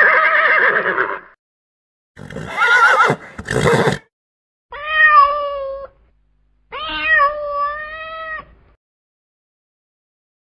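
A series of four short animal calls, each about a second long, cut apart by clean silences. The last two are clear, steady-pitched calls.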